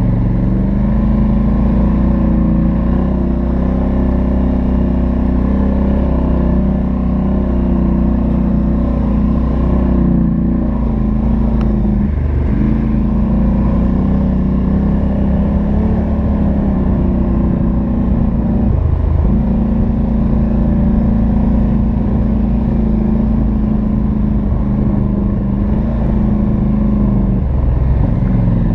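Polaris Sportsman XP 1000's twin-cylinder engine running through its stock exhaust under steady throttle on the trail, with three brief throttle lifts, the last near the end.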